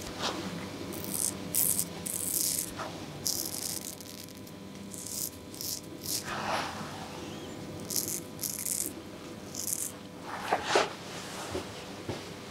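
Straight razor scraping lathered beard stubble in a series of short, crisp strokes, with a couple of louder rustles near the end.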